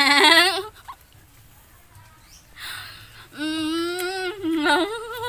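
Goat bleating: a quavering bleat that ends under a second in, then another long, wavering bleat beginning about three and a half seconds in.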